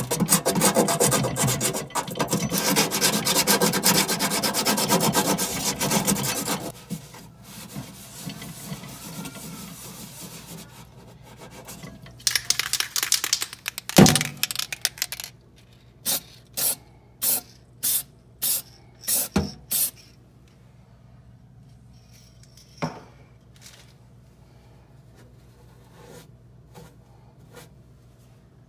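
Low-grit sandpaper rubbed back and forth by hand on the painted metal wall of a microwave oven cavity, dense and steady for about seven seconds, then lighter. Around halfway there is a clatter and a sharp knock. Then come about seven short hisses of an aerosol can of microwave cavity paint, sprayed lightly in quick dabs.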